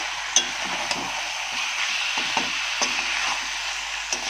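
Chicken and spice paste sizzling in a metal kadhai while a spatula stirs and scrapes them, with a few sharp knocks of the spatula on the pan. This is the bhuna stage, frying the masala down until it reddens.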